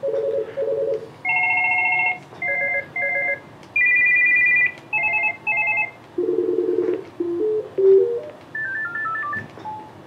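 ESI eSIP Evolution Series desk phone playing previews of its built-in ring types one after another through its speaker: a series of short electronic ring patterns, warbles, trills and paired bursts, each at a different pitch and rhythm, with a falling run of beeps near the end.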